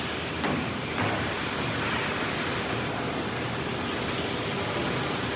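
CNC panel saw running: a steady machine noise with a thin, steady high whine, and two faint knocks about half a second and a second in.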